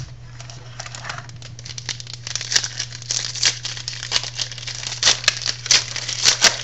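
Wrapper of a pack of football cards being torn open and crinkled. Irregular crackles, sparse at first, grow dense from about two seconds in.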